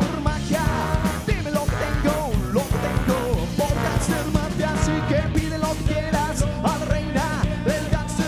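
Live rock band playing: a saxophone carries a wavering melody over electric guitar and a steady drum beat.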